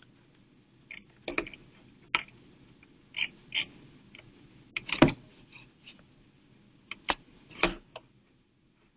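Irregular clicks and taps of a computer keyboard and mouse while a name and email address are typed into a form, with the loudest knock about five seconds in.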